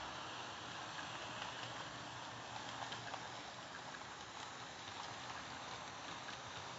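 Kato N scale freight train running on Unitrack: a steady rolling hiss of the locomotive and boxcars on the rails, with faint scattered clicks.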